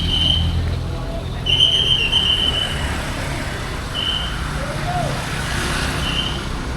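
A bus's basuri horn sounding four high whistling notes, the longest about a second and a half, over the low running of a bus engine.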